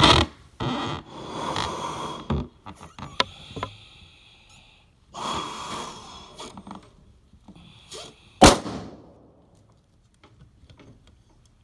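Forceful breaths blown into a balloon, then one sharp bang about eight and a half seconds in as the balloon bursts.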